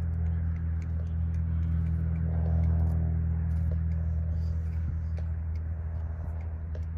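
Steady low drone of an idling engine, with a few faint clicks over it.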